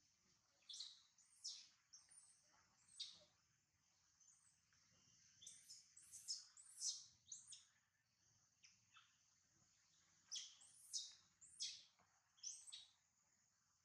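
Newborn macaque crying: short high-pitched squeals that come in irregular clusters throughout, over a faint steady high hiss.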